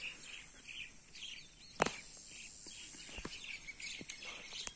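Small birds chirping over and over in the background, faint and unhurried. A single sharp click cuts across them about two seconds in.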